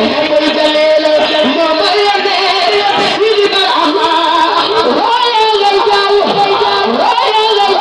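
A woman singing a devotional song into a handheld microphone, her voice amplified through a sound system. She holds long notes that waver and slide in pitch.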